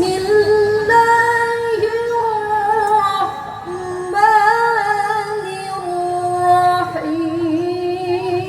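Quran recitation in the melodic tarannum style: a single high voice holds long, ornamented notes, stepping up and down in pitch, with short breaks between phrases.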